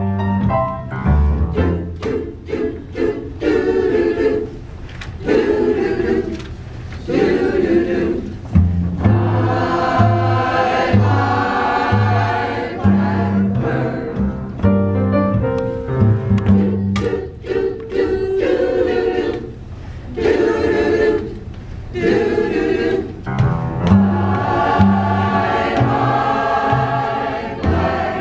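Mixed choir of men's and women's voices singing a song together in parts.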